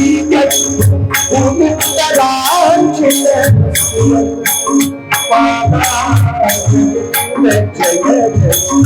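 Devotional kirtan music: singing over hand percussion with jingling metal, keeping a steady beat.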